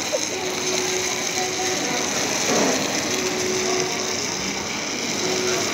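Chicken and vegetables in brown sauce sizzling and bubbling on a hot sizzling plate: a steady, dense crackling hiss.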